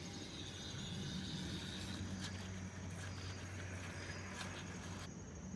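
Faint, scattered clicks of a wrench working a 10 mm bolt loose, over a low steady hum.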